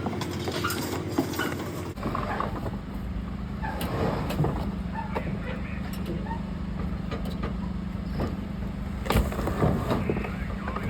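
Engine running steadily, with scattered clanks and knocks over it. The steady hum changes pitch abruptly about two seconds in.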